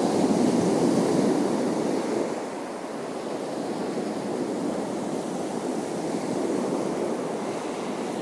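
Sea surf washing on the shore: a steady rush of water that swells louder in the first two seconds, then eases off and swells again more softly later.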